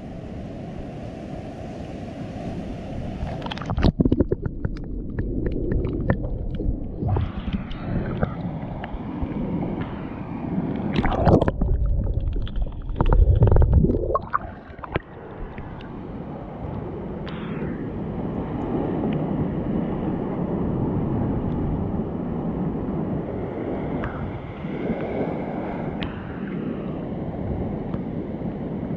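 Rock-pool water at the surface, then muffled underwater from about four seconds in: low sloshing and gurgling of water, with several loud gurgling bursts near the middle.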